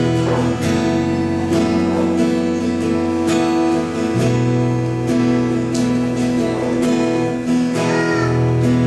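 Instrumental music: strummed acoustic guitar over sustained chords and a bass line that changes chord every few seconds, with a light percussive accent about every second.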